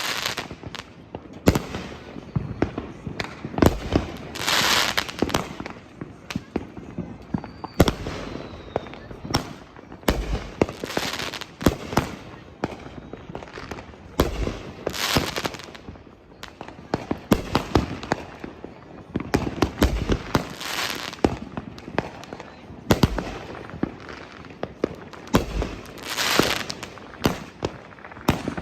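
Consumer fireworks going off: a steady run of sharp bangs, with a longer crackling burst about every five seconds.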